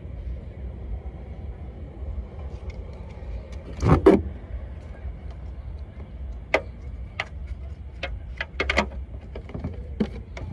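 Sharp clicks and knocks of hands working on a car's tail light and bulb socket, with a louder double knock about four seconds in and a run of single clicks after it, over a steady low rumble.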